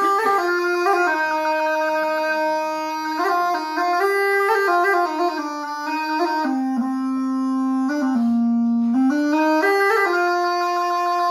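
Bagpipe playing a folk melody that steps quickly from note to note, dropping to lower held notes about two-thirds of the way through before the tune picks up again.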